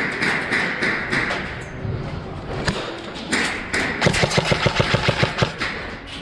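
An airsoft gun firing a rapid burst of about fifteen shots, roughly nine a second, starting about four seconds in. Scattered knocks come before the burst.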